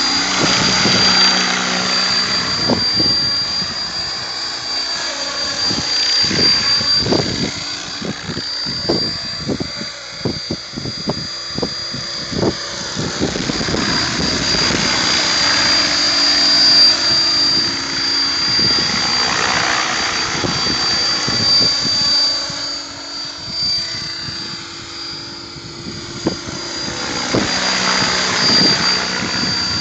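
Mikado Logo 600 electric RC helicopter in flight: a steady high motor and gear whine over rotor-blade whoosh that swells and fades as it makes passes.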